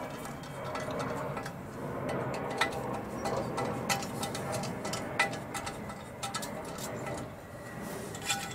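Screwdriver tightening small screws into the aluminium crankcase of a Yamaha XS650 engine: light metal clicks and ticks, single ones about a second apart, then a quick cluster of metal clatter near the end as parts are handled.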